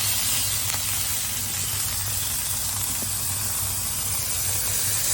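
Halloumi cheese sizzling on a hot flat-top griddle: a steady, even hiss, with a low steady hum underneath.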